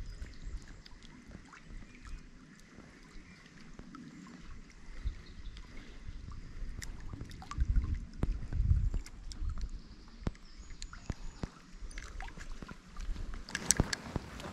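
Lakeside ambience of small waves lapping at a rocky bank, with wind gusting on the microphone about halfway through. Small scattered clicks from fishing tackle, and a louder rustle of movement near the end.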